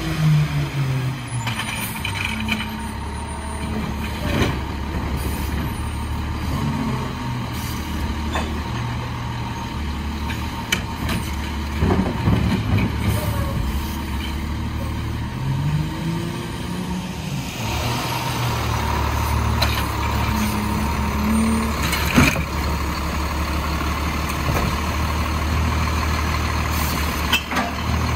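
Diesel engine of an Autocar WXLL garbage truck with a McNeilus Autoreach automated side-loading arm, running and revving up and down as the hydraulic arm works. Several sharp clunks and an air-brake hiss come through it.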